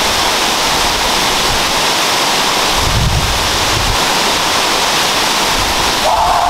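Loud, steady rush of water from a very large waterfall heard close to its base, with gusts of wind and spray buffeting the microphone about three seconds in.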